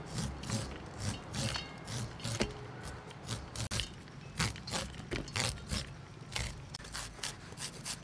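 Kitchen knife scraping kernels off an ear of sweet corn onto a metal plate, in repeated downward strokes about two a second.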